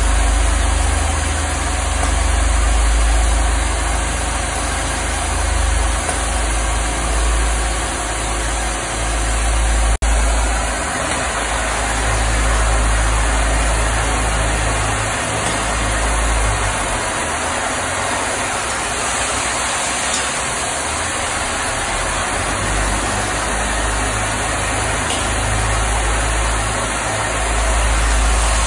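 Peddinghaus ABCM1250 beam coping machine running with a steady low hum and an even hiss. From about ten seconds in the hiss grows brighter as its cutting torch burns at the steel beam, and a single sharp click comes just before.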